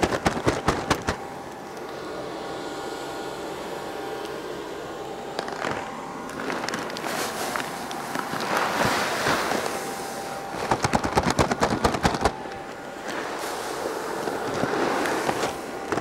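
Seed corn poured from paper bags into a corn planter's seed tank: the kernels pour with a rushing hiss, broken by bursts of rapid rattling clicks at the start and again about eleven seconds in.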